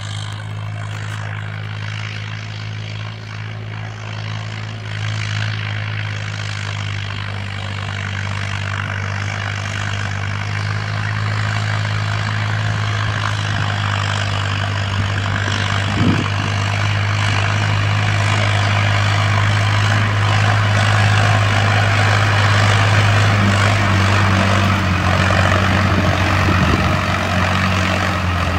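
Indo Farm diesel tractor engine running steadily under load while pulling a disc harrow, a low even drone that grows steadily louder as the tractor comes closer.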